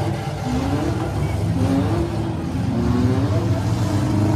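Several six-cylinder demolition derby cars' engines running together, revving, with the engine pitch rising and falling over a deep, steady rumble.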